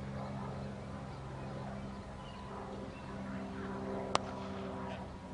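A single sharp crack of a cricket bat hitting the ball, a little after four seconds in, over a steady low hum.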